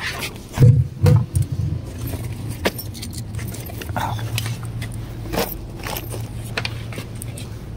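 Belongings being handled and packed up close to the phone: jangling, clicking and rattling, with two loud thumps about a second in. A low steady engine hum runs underneath from about halfway through.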